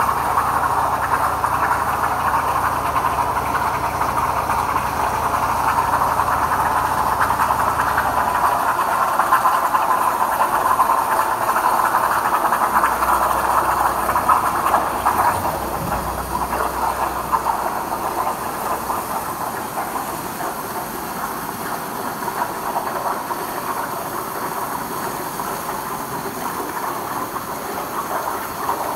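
CNC plasma cutter torch hissing steadily as it cuts, with a low machine hum beneath that drops away about eight seconds in.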